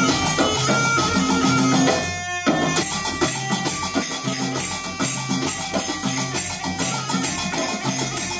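Instrumental folk-style music with held melodic notes over drums and hand percussion, settling into a steady pulsing beat a few seconds in.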